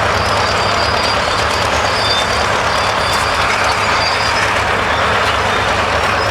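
Steam ploughing engine at work, a loud steady mechanical running noise with a low hum underneath.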